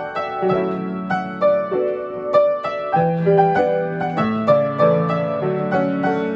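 Solo piano playing a pop song arranged by ear: a melody of struck notes, several a second, over held bass notes and chords.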